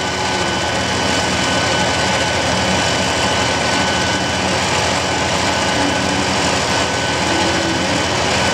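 Electric winch running steadily under power, a constant motor whine over a steady mechanical drone.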